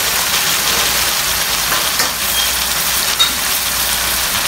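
Taro and ginger sizzling steadily in hot oil in a cooking pot while being sautéed, with a few light ticks.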